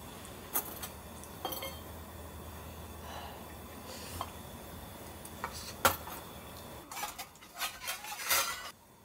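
Dishes and cutlery clinking and knocking: a few separate clinks, the loudest about six seconds in, then a quick run of them near the end.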